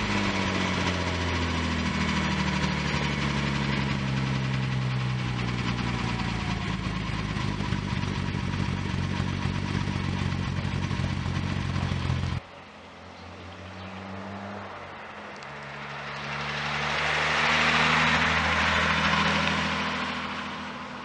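A 1972 Nissan Skyline 2000GT-X's twin-SU-carburettor straight-six idling, heard right at its dual exhaust tailpipes, easing down from a rev in the first second and then running evenly. After a cut about twelve seconds in, the car is heard driving past, its exhaust swelling and then fading as it moves away.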